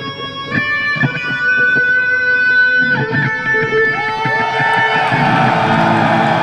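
Electric guitar played through an amplifier: a slow melody of long held notes, with notes bent and sliding in pitch from about four seconds in.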